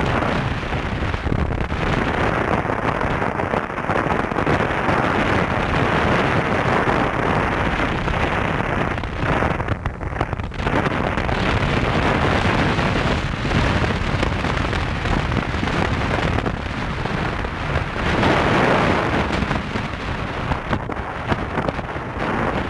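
Wind buffeting the microphone of a camera on a moving motorcycle, a loud rushing noise that swells and dips, with the motorcycle's running noise underneath; it eases briefly about ten seconds in.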